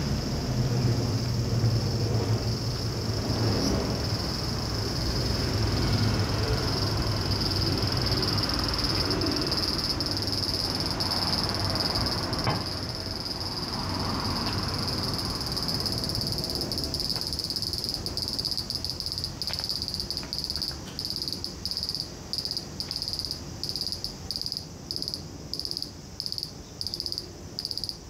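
Cicadas singing: a steady high buzz throughout, which in the last third becomes a pulsing call of regular bursts, about one and a half a second. A low rumble underneath fades away about halfway through.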